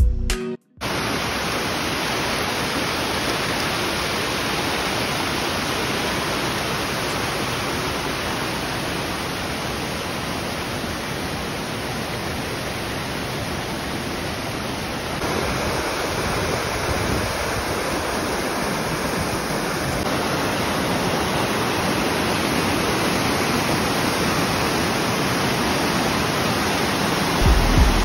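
Waterfall water rushing over rock: a steady, dense rush of white water. Its tone shifts slightly about halfway through.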